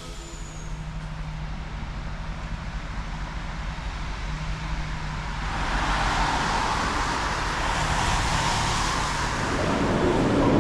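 Motor vehicle noise: a steady low engine hum, with a rush of noise that swells from about halfway through.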